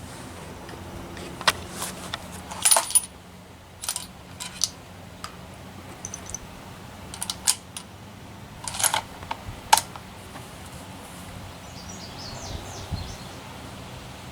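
A Remington 700 ADL bolt-action rifle's bolt being worked and cartridges handled: a series of sharp metallic clicks and clinks in several clusters.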